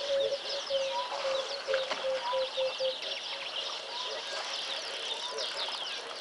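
Several wild birds calling at once: a dense chatter of quick, high, falling chirps, a short call repeated about once a second, and a lower note repeated rapidly that stops about three seconds in.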